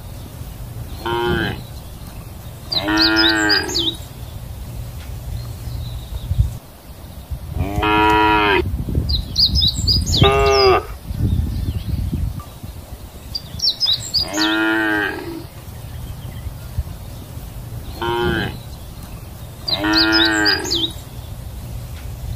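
Cows mooing repeatedly, about seven calls in all. Some are short and some last about a second, with a steady low rumble underneath.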